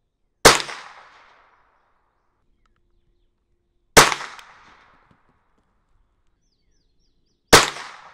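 Three single shots from a Marlin Model 60 semi-automatic .22 Long Rifle, fired a few seconds apart. Each is a sharp crack that echoes away over about a second.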